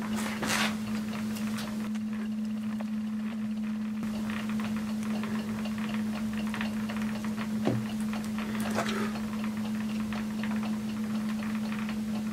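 Fingers teasing cotton wool off a cotton bud: faint rustles and small scratches, with a single light knock a little past halfway. A steady low hum runs underneath.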